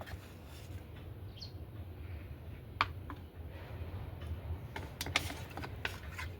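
Scattered light clicks and taps over a steady low hum, with one short high bird chirp about a second and a half in.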